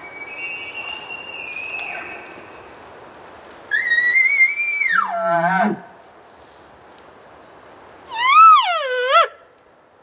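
Elk calling: a faint, high, held bugle note early on, then a loud bugle about four seconds in that whistles high and drops into low grunts, followed near the end by two loud nasal cow-elk mews that rise and fall in pitch.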